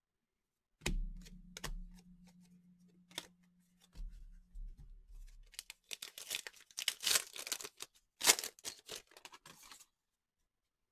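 A foil trading-card pack (2019-20 Contenders Draft Picks basketball) being torn open and its wrapper crinkled, in two bouts of dense crackling from about six seconds in. Earlier there is a single sharp knock about a second in, followed by a faint low hum for a few seconds.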